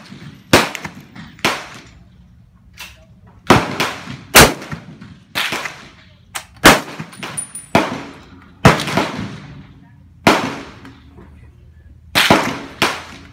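Gunshots on an outdoor rifle range: about a dozen sharp reports at uneven intervals, some in quick pairs, each trailing off in echo.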